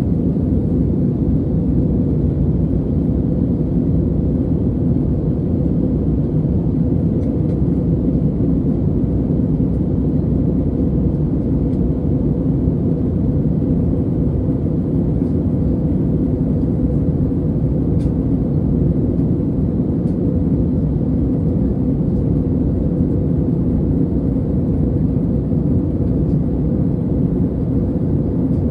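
Steady cabin noise of a Lufthansa Airbus A320neo in flight, heard from a window seat behind the wing: an even, unbroken low rumble of its Pratt & Whitney PW1100G geared turbofan engines and the rushing air around the fuselage.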